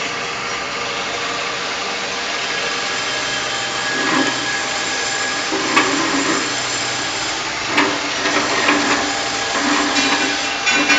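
Ring-cutting machine for plastic cups running steadily. From about four seconds in, a louder grinding band comes and goes several times with a few sharp clicks, as cups are fed through and their rims cut off.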